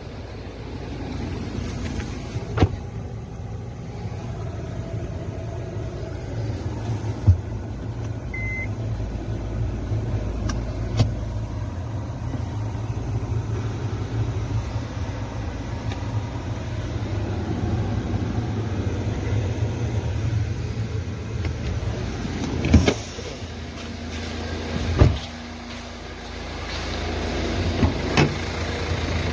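Hyundai R2.0 four-cylinder turbodiesel idling, a steady low hum heard from inside the cabin. A few sharp clicks and knocks come at irregular moments.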